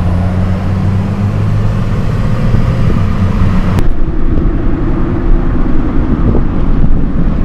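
Car engine and road noise heard from inside a moving car's cabin: a steady low drone. A sharp click about four seconds in, after which the drone's pitch and character change abruptly.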